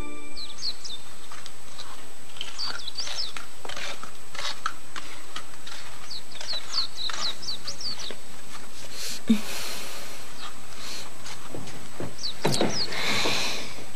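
Small birds chirping in many quick, short high calls, with a brief knock about nine seconds in and a short rush of noise near the end.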